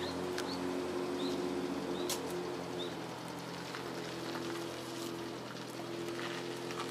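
JR Shikoku 8600 series electric express train approaching, a steady low electric hum made of several held tones that shift slightly partway through. A small bird gives a few short rising chirps in the first few seconds.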